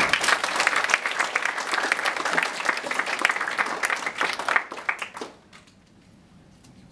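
Audience applauding, the clapping dying away after about five seconds.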